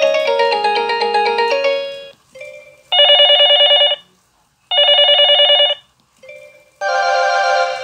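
Kyocera DuraXE ringtones playing one after another. A melodic ringtone ends in the first two seconds. A trilling telephone-bell style ring then sounds twice, about a second each, and another melodic ringtone starts near the end.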